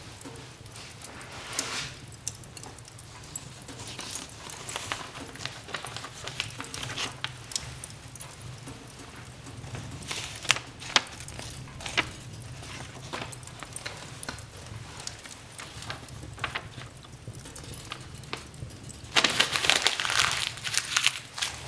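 Wood fire crackling in a fireplace: irregular sharp pops and snaps over a low steady rumble, with a louder flurry of crackling and hiss near the end.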